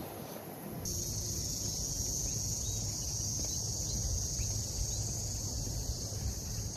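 Steady, high-pitched insect drone that sets in suddenly about a second in and holds, over a low rumble.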